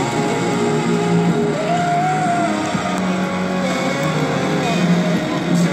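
Music playing: a held melody that slides smoothly between notes over low sustained notes.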